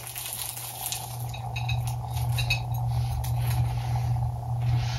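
Flaky croissant crust crunching and crackling as it is bitten into and chewed, in a scatter of short crisp crackles over a steady low hum.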